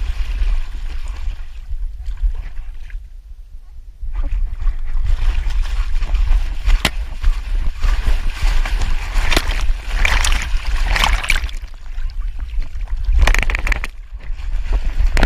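Water splashing and sloshing around a dog paddling across a river, heard close up from a camera strapped to its back, over a steady low rumble. The splashing comes in louder bursts about ten and thirteen seconds in, as the dog reaches the bank and climbs out.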